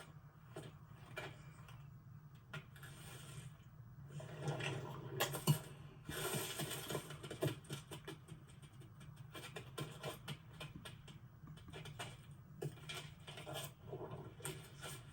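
Animated-film sound-effects track: irregular small clicks, taps and rustles over a low steady hum, with a denser, louder stretch of rustling about four to seven seconds in.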